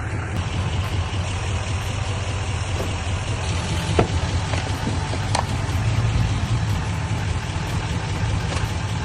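A vehicle engine idling steadily, with a few sharp clicks about four and five seconds in.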